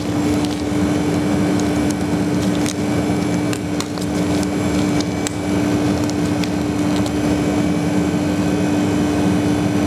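Steady hum of professional kitchen machinery running, with one constant mid-pitched tone over a noisy drone and a few faint clicks.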